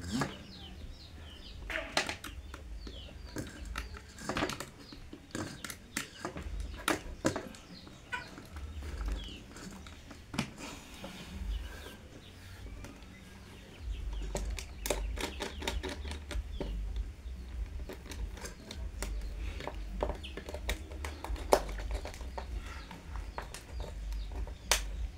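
Clicks, taps and rustles of stiff electrical wires being handled around a plastic contactor, with a screwdriver at a circuit breaker's terminal screws near the end. A low rumble comes in about halfway, and faint bird calls sound in the background.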